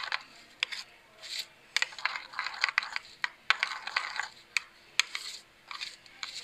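A metal spoon stirring thick ketchup sauce in a bowl, clinking and scraping against the bowl in irregular strokes.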